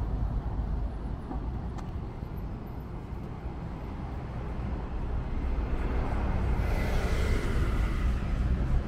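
City street traffic: a steady low rumble of road vehicles, with a vehicle passing and growing louder about two-thirds of the way through.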